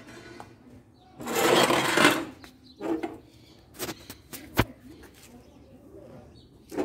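A burst of rustling lasting about a second, followed by a few sharp knocks and clicks.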